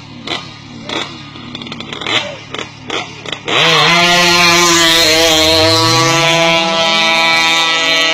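A 1000cc sport motorcycle's engine, blipped in a few short revs, then opened up hard about three and a half seconds in. It runs loud from there, its pitch climbing as the bike accelerates away.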